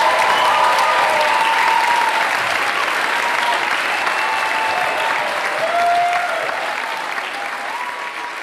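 A large audience applauding, with some voices calling out over the clapping. The applause gradually fades out near the end.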